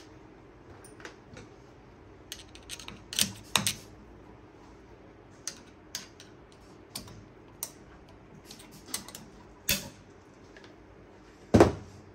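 Irregular sharp metallic clicks and snaps from snap ring pliers working a steel snap ring into its groove over a new motor bearing, with the loudest snap near the end.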